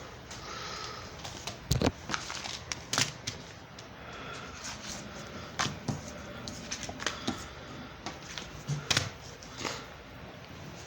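Plastic DVD case being handled: irregular clicks, taps and knocks, a few of them sharper, over a steady low background noise.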